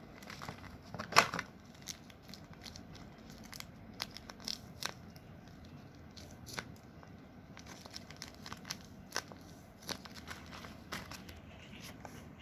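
Paper crinkling and rustling in short scattered bursts as paper squishies are handled and squeezed, with one louder crinkle about a second in.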